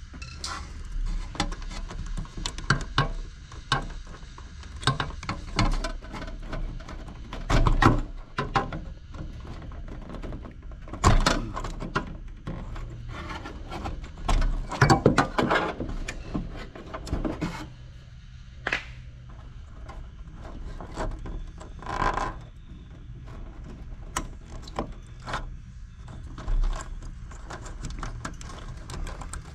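Irregular clicks, knocks and rattles of hands and tools handling wiring and parts inside a PTAC air-conditioning unit, with a few louder knocks.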